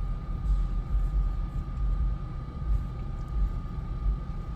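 Steady low rumble inside a car with its engine running, with a faint steady hum above it.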